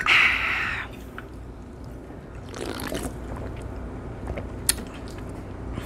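A short hiss in the first second from a freshly opened aluminium can of hard cider, then quieter sipping from the can about halfway through.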